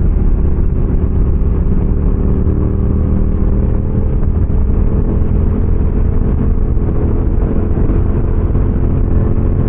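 Motorcycle engine running steadily while riding, its note holding roughly even, over continuous road noise.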